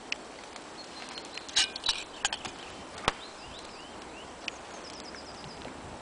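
Songbirds singing in the woods, one giving a quick run of repeated high notes in the second half, over a few sharp clicks and taps from handling things close by, the loudest about a second and a half and three seconds in.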